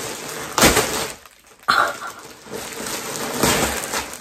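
Plastic mail-order parcel bag rustling and crinkling in several loud bursts as it is handled and opened to take out a jumper.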